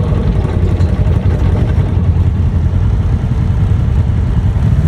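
ATV engine running steadily, a loud continuous low rumble.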